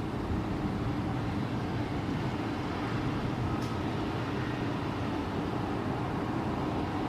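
Steady low rumbling background noise with no distinct events, and a faint click about three and a half seconds in.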